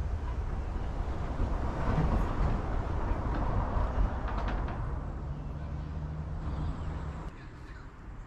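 Rumble of road traffic passing, with a steady engine hum in the last couple of seconds before the sound drops away suddenly near the end.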